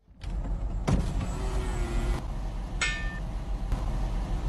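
Steady low rumble of a motor vehicle running, with a sharp click about a second in and a short high-pitched sound near three seconds.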